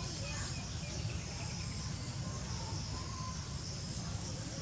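Steady high-pitched insect chorus with a low rumble underneath and a few faint short chirps.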